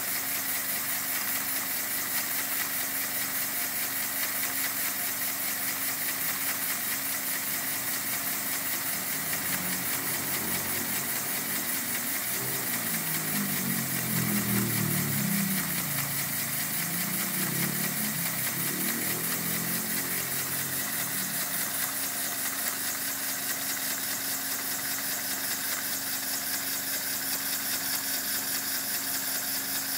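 Homemade steam-engine-style motor built from scrap parts, running on compressed air from a compressor instead of steam, turning steadily with a continuous hiss of air. A lower rumble swells and fades about halfway through.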